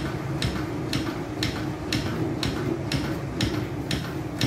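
Chest compressions on a CPR training manikin, with a sharp click about twice a second, about 120 a minute, the rate of 100 to 120 compressions per minute.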